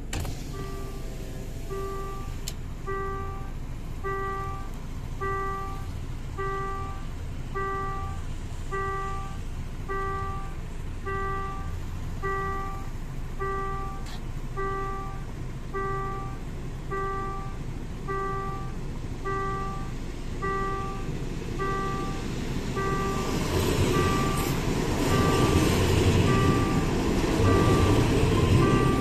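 Railway level-crossing warning bell ringing with an even ding, about one and a half a second, as a train approaches. From about 23 s in, the rumble of the train passing through the crossing grows louder under the bell.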